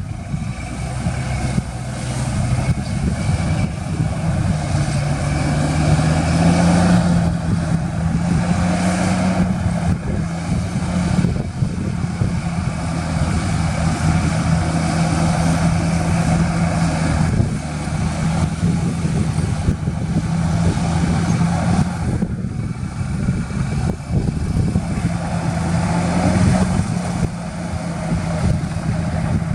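Heavy diesel engine of earthmoving equipment running steadily under load, its pitch rising slightly a few times.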